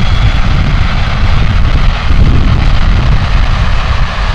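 Boeing 737-200 jet airliner's JT8D engines, a loud steady rumble as the plane lands.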